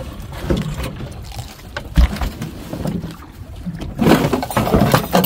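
Knocks and clatter of gear being handled on a small fishing boat: plastic bucket, tub and aluminium cookware, with one heavy thump about two seconds in and a louder, noisier clattering stretch near the end.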